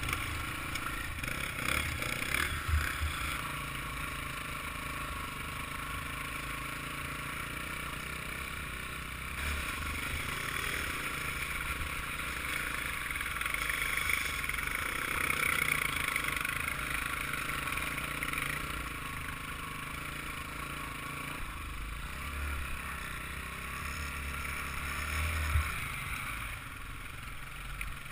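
Off-road motorbike engine running and revving, the note rising and falling with the throttle, as heard from a helmet-mounted camera on the riding bike. A few knocks and clatter from the bike going over rough ground, the loudest about two and a half seconds in and shortly before the end.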